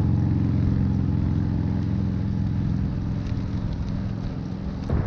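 Steady low road rumble with a hum from a gravel bike rolling along pavement, easing off slightly near the end.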